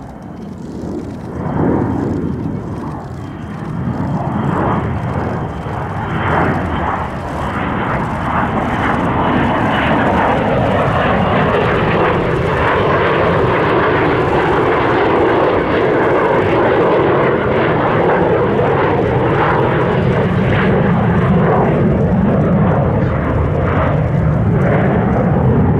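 The twin General Electric J79 turbojets of an F-4EJ Kai Phantom on a slow pass with its landing gear down. The jet engine noise grows louder over the first ten seconds or so, then stays loud and steady.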